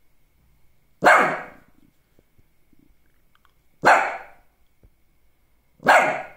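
A Lhasa Apso barking: three single barks spaced two to three seconds apart, each starting suddenly and dying away within about half a second.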